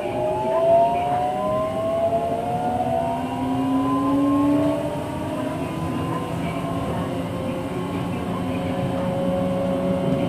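Kanazawa Seaside Line 2000-series train's Toyo IGBT-VVVF inverter whine, several tones rising together in pitch as the train accelerates, over the low running noise of the car. About six seconds in the rise levels off into a steady tone at running speed.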